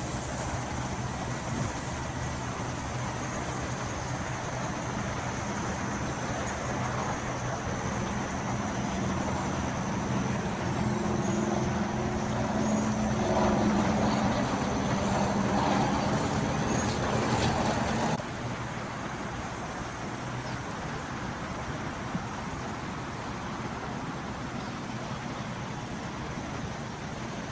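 Outdoor road traffic noise. A motor vehicle's engine runs louder through the middle, then stops suddenly about two-thirds of the way through.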